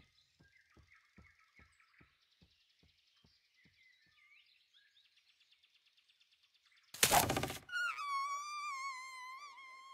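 Faint forest ambience from a film soundtrack: soft ticks about twice a second and faint high bird-like chirps. About seven seconds in comes a sudden loud noise lasting under a second, then a held high string note with vibrato as the musical score comes in.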